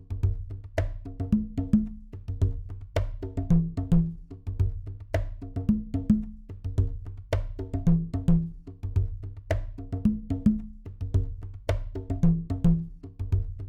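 Instrumental music with a steady beat: sharp, clicky percussion hits over a bass line, in a pattern that repeats about every two seconds.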